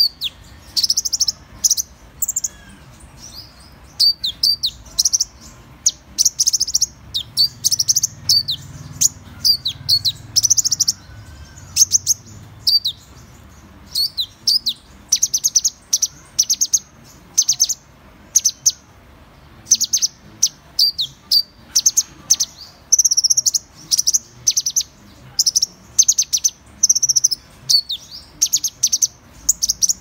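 Van Hasselt's sunbird calling: high, thin chirps and quick twittering notes in short bursts a fraction of a second apart, some of them brief down-slurred notes.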